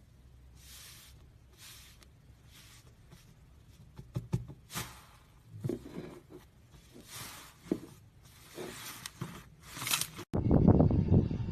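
Hands working slime: soft sticky squishing and swishing at first, a few sharp little pops in the middle, and a louder, dense crackly squishing starting near the end.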